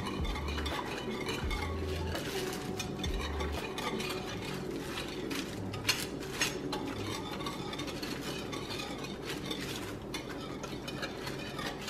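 A wire whisk stirring a liquid of coconut milk and spices in a plastic-lined slow cooker crock: a steady swishing with light clicks of the wires against the pot, and two sharper clinks about six seconds in.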